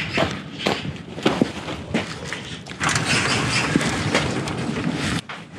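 Rustling and scuffling broken by a few sharp knocks. The noise grows denser and brighter in the second half, then cuts off suddenly just before the end.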